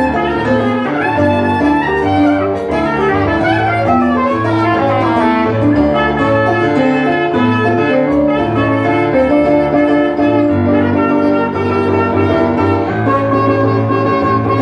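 Live instrumental duo: a woodwind plays a slow melody over chords from a Roland RD-700 digital stage piano, ending on one long held note near the end.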